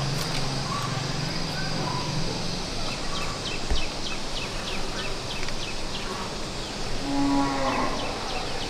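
A low, drawn-out animal call at the start and a shorter one near the end, over a steady outdoor hiss, with a quick run of light ticks between them.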